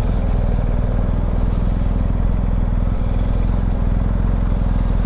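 BMW R1250GS Adventure's boxer twin engine running steadily as the bike rolls along slowly, with a low, evenly pulsing exhaust note.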